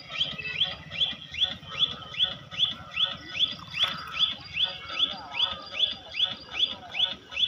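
An animal calling steadily in short rising chirps, about two and a half a second.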